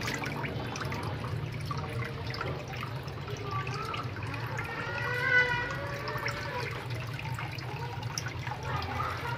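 Water trickling and splashing steadily into a small fish pond over a constant low hum. About five seconds in comes a brief high-pitched call, the loudest moment.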